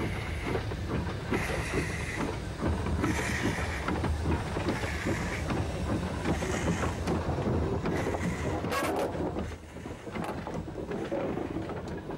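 Industrial saddle-tank steam locomotive built in 1938, shunting slowly with dead steam locomotives in tow. There are intermittent noisy exhaust puffs, knocks and clanks, and wheels clicking over the rail joints over a low rumble. It gets a little quieter after about nine seconds.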